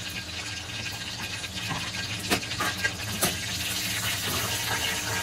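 Tonkatsu deep-frying in hot oil at about 170 °C, giving a steady sizzle and bubbling. A couple of sharp clicks come a little past two and three seconds in, as the cutlet is taken up with chopsticks and lifted out of the oil.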